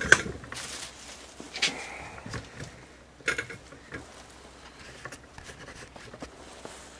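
Handling noise from a grease gun and tools being picked up and moved: a sharp double knock at the start, then a few scattered light knocks and rustles.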